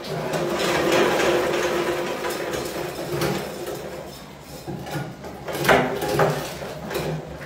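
Aluminium drink cans on the axle of a can-ramp mouse trap turning and rattling, with a steady ringing for the first few seconds. Sharp knocks follow, the loudest near the end, as mice tip the cans and drop into the clear plastic box.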